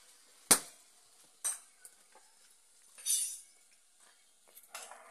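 Gas welding on a car's steel floor pan: a few sharp metallic clicks and knocks, the loudest about half a second in, and a short hiss about three seconds in.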